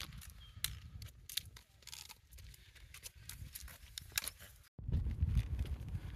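Footsteps of a walker on a wet hillside path, irregular crunching steps, with wind buffeting the microphone as a low rumble. The sound cuts out for an instant about three-quarters through, and the wind rumble is louder just after.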